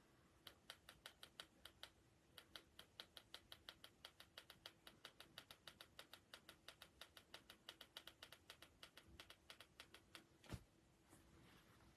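Faint, rapid, even clicking, about five clicks a second, with a short pause about two seconds in and one louder knock near the end, over a faint steady hum.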